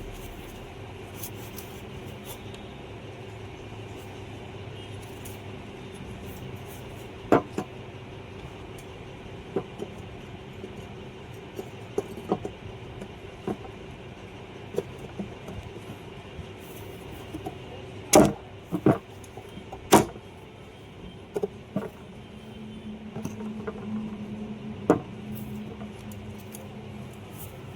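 Scattered sharp metallic clicks and knocks of hand tools and motor parts being handled during a repair, over a steady background hum; a few loud knocks cluster about two-thirds of the way through.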